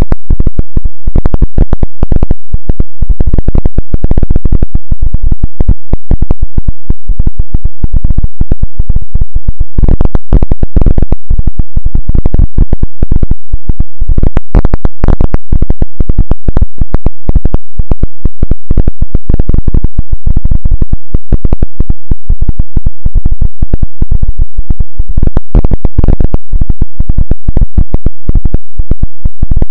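Loud, heavily clipped noise: a dense, unbroken stream of crackles and pulses, strongest at the low end and at full level throughout.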